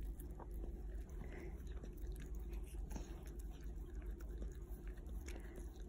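A small terrier licking and nibbling at a strawberry held in the fingers: many small wet licking and mouthing clicks, irregular, over a steady low hum.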